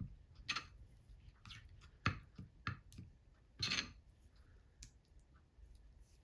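Irregular sharp clicks and knocks of kitchen work, about half a dozen, with one longer scraping sound a little past the middle.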